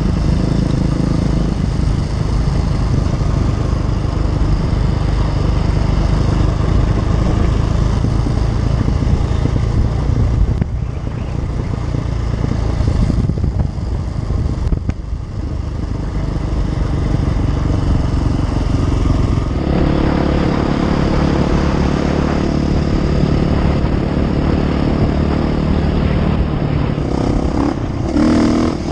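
Enduro motorcycle engine running while the bike is ridden along the trail, its note shifting in the first part and holding steadier from about two-thirds of the way through.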